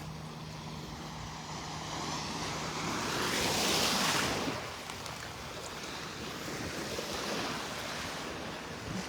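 Gulf of Mexico surf on the beach: a wave swells up and breaks about three to four seconds in, then washes out, with a smaller wash near seven seconds.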